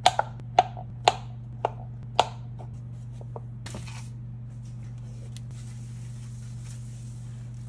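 A knife chopping through cold butter onto a plastic cutting board, six sharp taps in the first couple of seconds. Then a short rustle as plastic-wrapped ice packs are picked up and moved, over a steady low hum.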